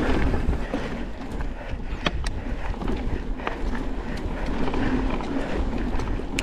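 Mountain bike riding down a dirt flow trail: a steady low rumble of riding noise with a few sharp clicks and rattles from the bike.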